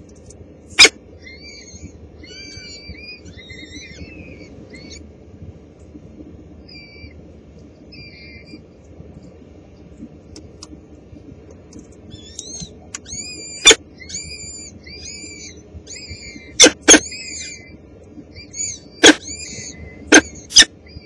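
Newly hatched peregrine falcon chicks peeping for food: short high cheeps in little runs, sparse in the first half and steadier in the second. Several loud, sharp clicks cut through, one near the start and a cluster in the second half.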